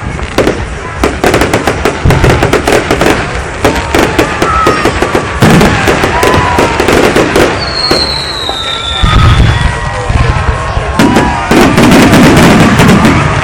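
Fireworks going off: dense crackling bangs throughout, with short whistles and one long falling whistle about eight seconds in. Heavy booms come in from about nine seconds and are loudest near the end.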